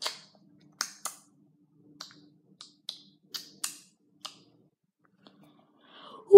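Handling noise from a phone held in the hand: a dozen or so light, sharp clicks and taps, irregularly spaced over the first four seconds or so, then quiet.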